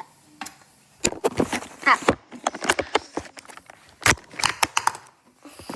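A burst of knocks, clicks and clatter from things being handled and bumped, with a child's short "Ah" about two seconds in.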